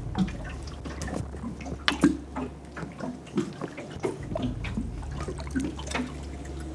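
Small irregular splashes and plops of water at the surface as something is drawn across it, the sharpest about two seconds in, over a steady low hum.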